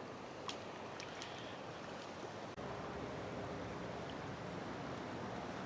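Steady rushing of flowing river water, with a few faint clicks in the first second and a half; the rush gets slightly louder after an abrupt jump about two and a half seconds in.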